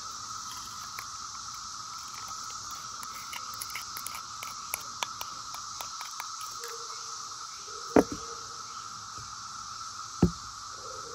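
Cicadas droning steadily, with small clicks and scrapes of a plastic measuring spoon against a glass bowl as sugared lemon peel is scraped into a saucepan. Two sharp knocks, about eight and ten seconds in, are the loudest sounds.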